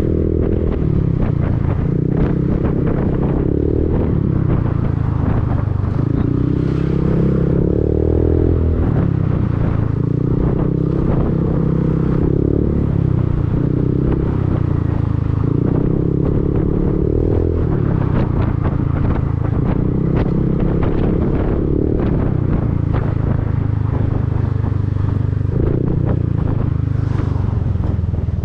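Honda Forza 300 scooter's single-cylinder engine through an aftermarket Arrow exhaust, running steadily loud, its pitch rising and falling every couple of seconds as the throttle opens and eases.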